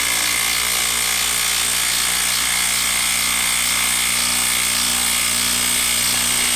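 Kobalt 24-volt brushless quarter-inch impact driver hammering steadily as it drives a long screw down into a wooden stump, under continuous load with a steady whine.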